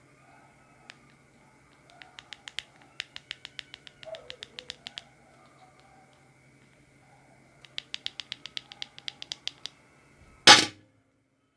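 Fingerboard with hard maple wheels clattering: two runs of rapid sharp clicks, about six or seven a second, then one loud clack near the end.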